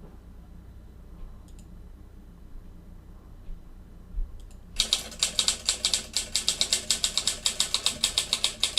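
Typewriter typing sound effect: a fast, even run of keystroke clicks, about seven or eight a second, starting near five seconds in after a few faint single clicks.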